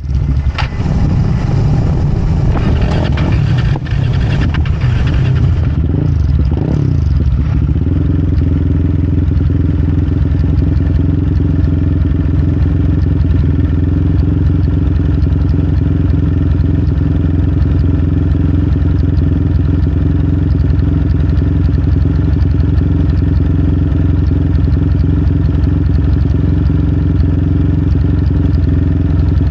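Kramer 690 Supermono race motorcycle's single-cylinder engine running. It is uneven for the first several seconds, then holds steady revs at a constant pitch.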